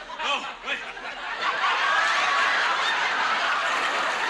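Studio audience laughing: scattered chuckles at first, swelling about a second and a half in into loud, full laughter from the whole crowd.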